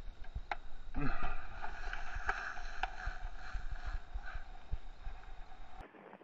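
Skis sliding and scraping over snow, a steady hiss with many low knocks of wind buffeting the camera microphone and a few sharp clicks. The sound cuts off suddenly near the end.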